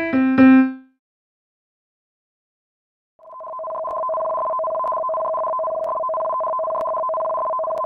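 The last notes of an electronic chime, then about two seconds of silence, then a steady electronic alert tone of two pitches held together, swelling in about three seconds in: the alarm that sounds with a tsunami warning.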